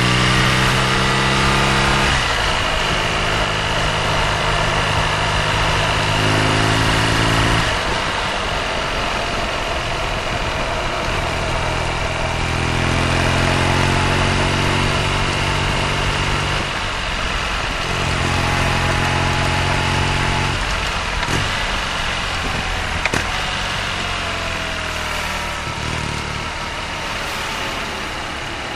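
BMW R nineT's 1170 cc boxer twin engine running under way, its pitch stepping up and down several times with throttle and gear changes.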